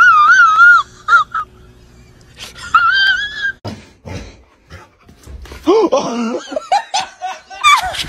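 Dog whining in a high, wavering cry that breaks off about a second in, then a shorter rising whine about three seconds in. Lower, bending cries follow near the end.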